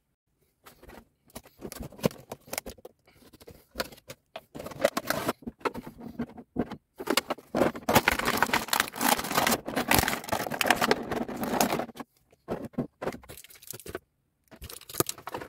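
Hands handling the clear plastic packaging of a boxed action figure as the figure is taken out: irregular rustling and scraping with short pauses, loudest about halfway through.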